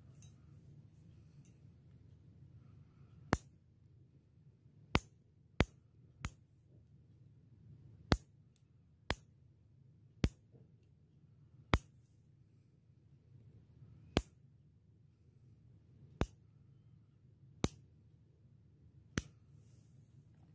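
Toenail clipper snapping shut as it cuts through toenail: about a dozen sharp clicks, unevenly spaced one to two seconds apart, over a faint low hum.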